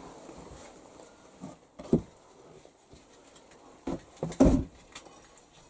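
A few short knocks and scrapes as a metal chimney damper is worked into place in the flue of a brick stove. The loudest comes about four and a half seconds in.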